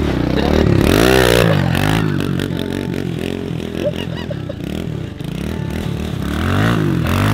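Pit bike engine revving as it is held up on a wheelie. The throttle is opened hard about a second in, then blipped up and down in short rises and falls, about two a second, with another hard rev near the end.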